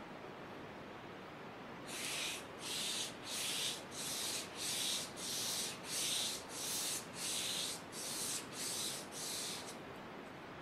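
A foam brush swishing back and forth across cold-pressed cotton watercolour paper: about a dozen even strokes, roughly two a second, starting about two seconds in.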